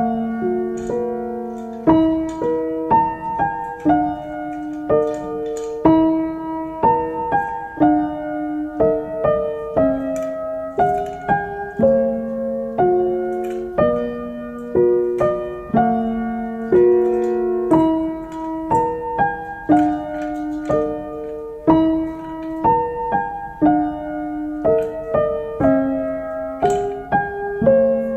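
Background piano music: a gentle melody of sustained notes at a steady, even pace.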